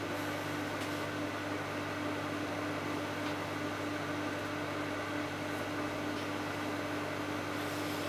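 Microwave oven running while heating pudding mixture: a steady, unchanging hum with a clear held tone over an even hiss.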